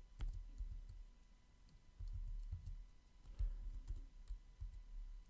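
Faint, irregular clicking and low thudding of typing on a computer keyboard.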